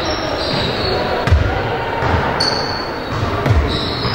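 Basketball bouncing on a hardwood gym floor: irregular low thumps about once a second, with a brief high squeak and echo from the large hall.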